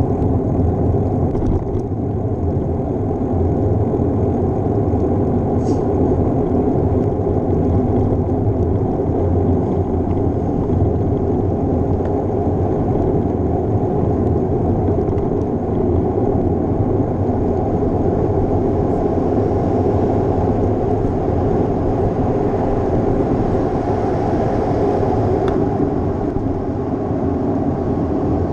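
Steady, muffled rumble of wind and road noise on a GoPro riding along on a moving bicycle.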